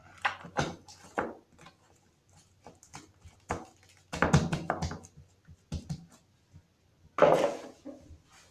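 Water-soaked homemade slime being squeezed and stretched by hand, giving a series of irregular wet squelches and pops, the loudest a little past four seconds in and again near the end.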